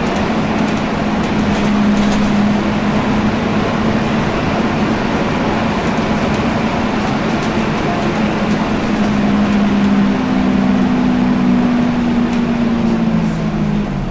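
Volvo B10BLE bus's six-cylinder diesel running with its engine cooling fan on, a loud steady drone with a low hum. The hum splits into two tones late on and falls away, and the overall noise drops, just before the end.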